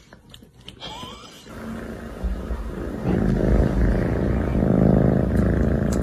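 Cat purring loudly, a steady low rumble that starts about a second and a half in and grows louder near the end.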